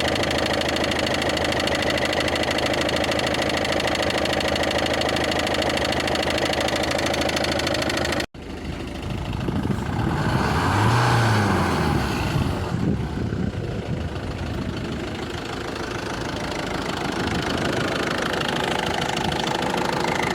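Ford Focus 1.6 four-cylinder diesel engine idling with a knock, heard from underneath the car. About eight seconds in the sound cuts off abruptly and resumes as another recording of the same engine running, which swells briefly and then settles.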